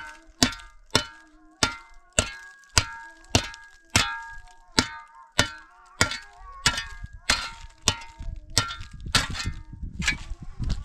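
Metal being struck in a steady rhythm, about one clang every half second or so, each blow followed by a short ringing tone.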